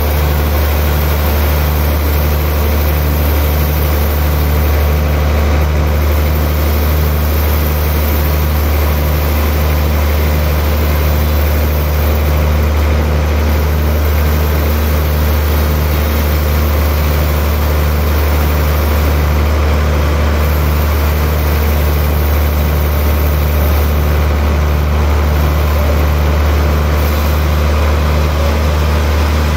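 Large Hantai Iron Works log band saw running steadily while cutting a slab from a big log on its carriage, a loud even drone with a slow regular pulse in its low hum.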